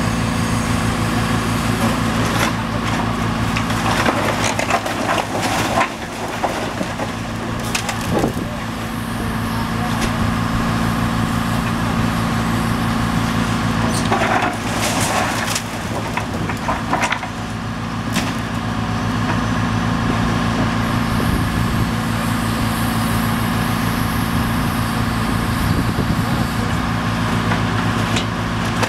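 High-reach demolition excavator's diesel engine running steadily. Several times its grapple tears at the charred wooden roof framing, with sharp cracking and splintering of wood.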